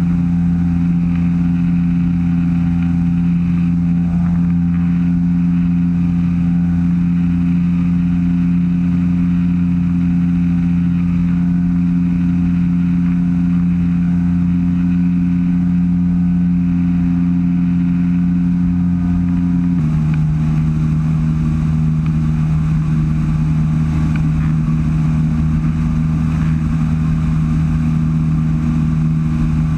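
Weight-shift microlight trike's engine and propeller droning steadily in flight; about twenty seconds in, the engine note steps slightly lower and holds there, as engine speed drops a little.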